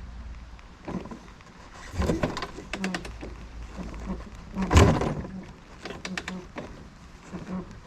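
Scattered knocks and clatter at irregular intervals, the loudest a little before five seconds in; no engine is running.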